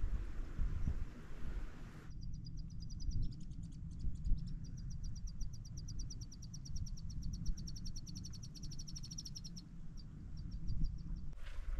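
A long, high, very rapid trill of even clicking notes, starting about two seconds in and stopping near the ten-second mark, over a low wind rumble on the microphone. Wind blows hard on the microphone for the first two seconds.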